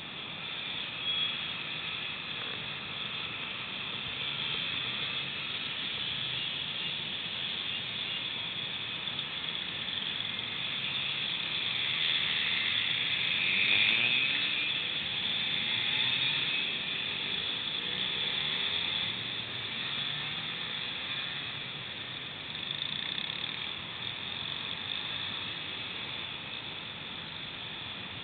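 A procession of Yamaha FS1-E "Fizzy" 50cc two-stroke mopeds riding past one after another, their engines buzzing with pitches that rise and fall as bikes go by. Loudest about halfway through.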